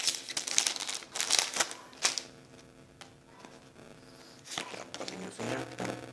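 Foil wrapper of a Pokémon trading-card booster pack crinkling as it is handled and torn open. It is loudest in the first two seconds, followed by quieter rustling and a click.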